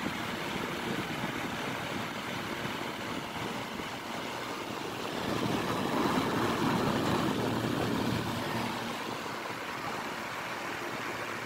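Climate Keeper desk fan running on high: a steady rushing of blades and moving air. The sound is louder for a few seconds in the middle, with the microphone close to the grille.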